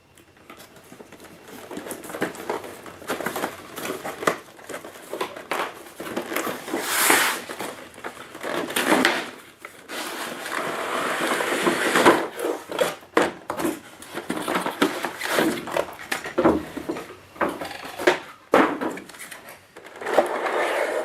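A boxed product's display-box packaging being handled and opened by hand: an irregular run of rustling, crinkling, clicks and scrapes, with a few longer, louder rustles.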